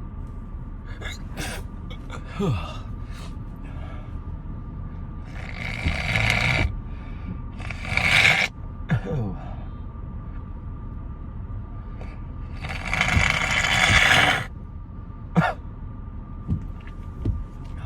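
A congested man with a head cold breathing hard through his nose and mouth: three loud breathy gasps or snorts about 6, 8 and 13 seconds in, the last the longest, with a few short low voice sounds falling in pitch in between.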